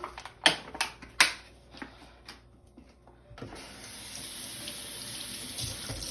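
Three sharp knocks in the first second or so, then about three and a half seconds in a kitchen tap is turned on and water runs steadily into the sink, rinsing strawberries.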